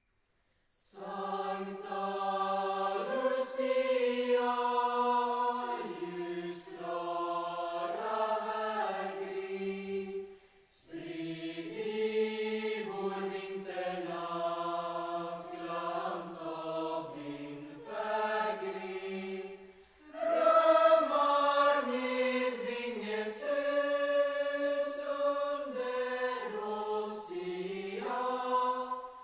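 Youth choir singing a Lucia song in several voice parts, starting about a second in, in long sustained phrases with short breaks about ten and twenty seconds in.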